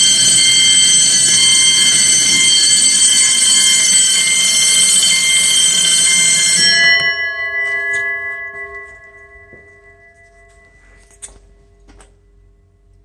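Several fire alarm bells and chimes sound together loudly. About seven seconds in they are shut off, and the bell gongs ring out and fade over the next few seconds; a single click follows near the end.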